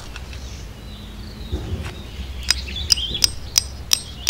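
A small hammer striking a tent stake into gravelly ground: about five sharp, evenly spaced blows, roughly three a second, starting about halfway through.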